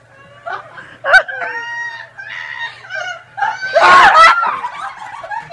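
People shrieking and laughing, with a sharp scream about a second in and the loudest burst of screaming around four seconds in.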